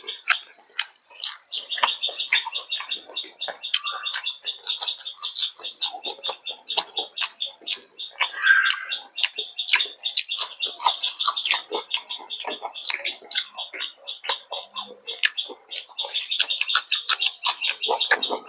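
Close-up eating sounds: wet chewing, lip smacks and fingers squishing rice as a man eats rice and fish by hand. Behind them, from about a second in, runs a continuous high, rapid chirping.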